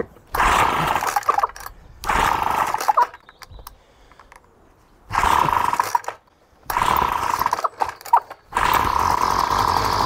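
Small two-stroke strimmer engine of a Flymo Maxi Trim being pull-started on part choke: it fires and runs for about a second, then dies, four times over, and catches for good near the end and keeps running. The carburettor has just been cleaned and the engine is cold.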